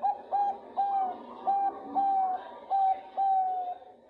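Zebra dove (Bangkok perkutut) cooing, the female's call to a male: a string of about nine mellow notes, the first few short and clipped, the later ones drawn out longer.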